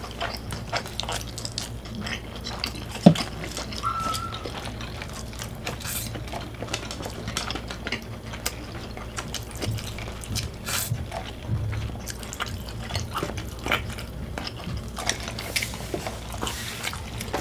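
Close-up eating sounds: chewing French fries and sipping a drink through a straw, with many small wet mouth clicks over a steady low hum. A single sharp click about three seconds in is the loudest sound.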